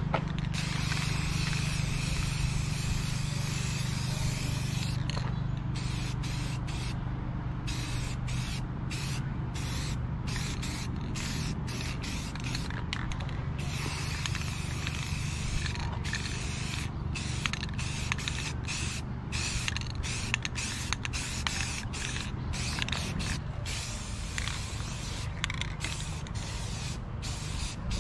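Aerosol spray paint cans hissing in repeated bursts with many brief gaps, over a steady low hum.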